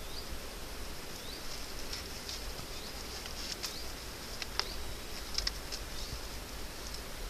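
Dry grass stems rustling and crackling as they are worked by hand into a small woven basket, with a few sharper crackles in the second half.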